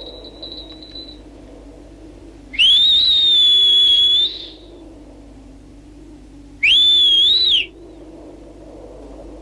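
A child's two-finger whistle, blown twice. Each is a high, loud whistle that rises sharply and then holds: the first lasts about a second and a half, the second about a second.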